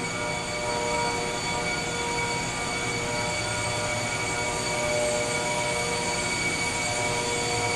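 High-speed centrifugal air blowers, whose motors are driven by variable frequency drives at over 20,000 RPM, running steadily: a constant whine made of many high, steady tones over a low hum.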